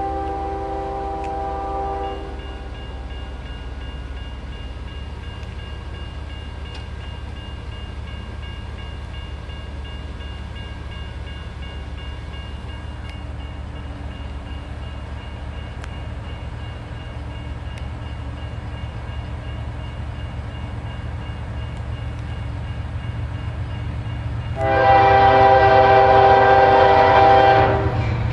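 Diesel freight locomotive approaching with its air horn sounding. One horn blast ends about two seconds in. The engine runs low and steady under faint tones, then the horn comes back much louder near the end in a long blast and the start of another.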